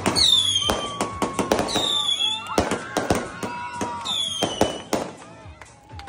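Fireworks firing in quick succession: a rapid run of sharp cracks and pops, with several high whistles that fall in pitch.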